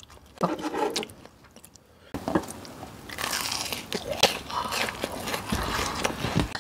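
Close-miked crunching and chewing of a deep-fried breaded pork cutlet, the crisp crust crackling, starting about two seconds in after a short lull.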